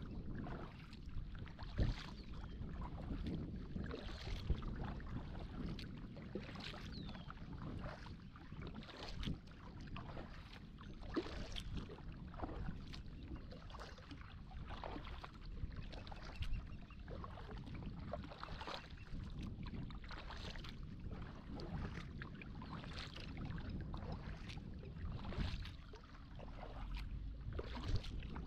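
Kayak being paddled: regular splashes of the paddle blades dipping into the water, roughly one stroke every second or two, over a steady wash of water.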